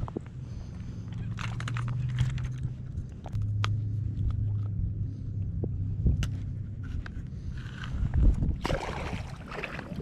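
Small clicks and light knocks of a soft-plastic lure being worked out of a speckled trout's mouth with a metal hook pick, over a steady low motor drone that shifts pitch once. Near the end comes a burst of rushing noise.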